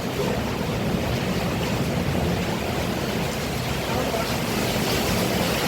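Heavy rain pouring steadily, an even hiss without let-up.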